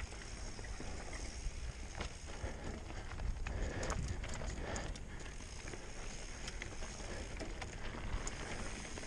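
Trek Remedy 8 mountain bike rolling down rocky trail: tyres on rock and the bike rattling, with wind rumbling on the helmet camera's microphone. A run of sharp knocks and clatters comes about four seconds in.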